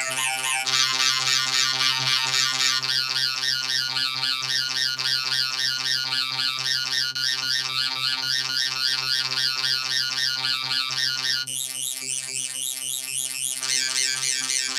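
Electronically processed, pitched-up 'helium' audio-edit effects: a layered, continuous warbling drone of stacked tones with a synthetic sound. The texture thins out about eleven seconds in, then fills out again a couple of seconds later.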